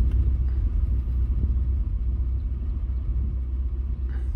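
A car's engine idling with a steady low rumble, heard from inside the stopped car.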